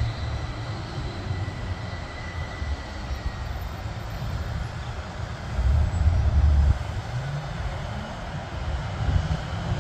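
Distant business-jet engines running on the ground: a steady rush with a faint high whine in the first few seconds, under an uneven low rumble that swells around six seconds in.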